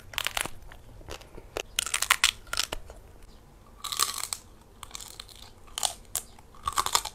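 Crunching and chewing of crispy roast pork skin, heard as irregular crackly bites in several clusters.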